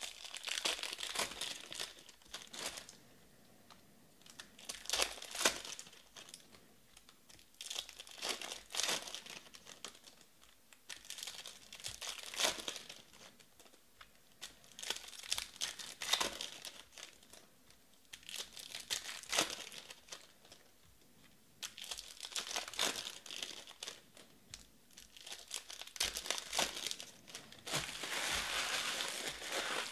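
Baseball trading cards being handled and sorted into stacks, with papery rustling and crinkling of the cards and their foil pack wrappers, coming in bursts every few seconds.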